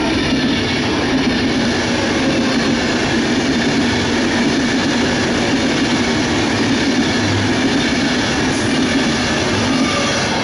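Frecciabianca Pendolino-type electric trainset passing close by at speed: a steady, loud rush of wheels on the rails and air along the coaches.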